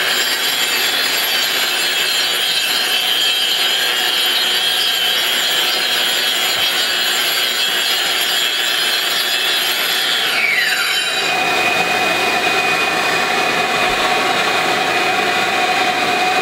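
Metabo angle grinder under a vacuum dust shroud, grinding epoxy coating off a concrete floor with a steady high whine and scraping. About ten seconds in, the whine drops sharply in pitch as the grinder winds down, leaving the steady hum of the dust extractor.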